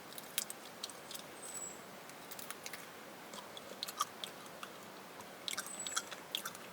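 A person chewing and biting on raw wild bird meat close to the microphone: irregular small wet clicks and crunches from the mouth.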